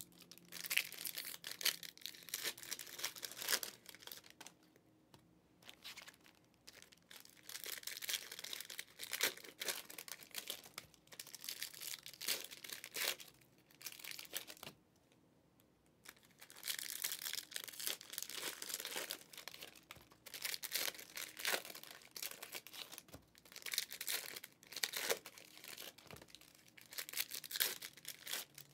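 Foil trading-card pack wrappers being torn open and crinkled by hand, in clusters of crackly rustling separated by short pauses.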